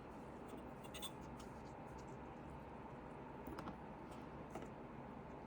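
A few faint, small clicks and scratches of a CPU and motherboard socket being handled as the processor is lowered into place, over a steady low room hum.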